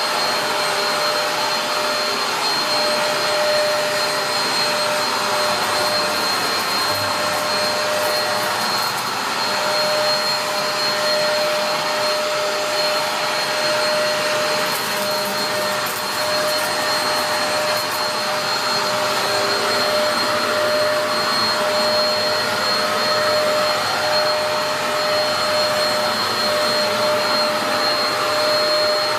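Dyson DC03 upright vacuum cleaner running steadily, a continuous rush of air with a steady whine from the motor.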